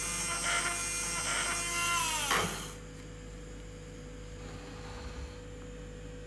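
Small geared DC motor of a homemade lead-screw actuator running with a steady whine, then winding down with a falling pitch and stopping about two and a half seconds in. A faint steady hum remains after it stops.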